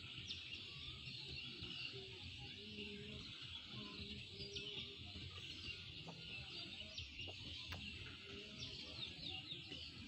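Many birds chirping and calling together in a dense, steady chorus of short high chirps, over a low rumble.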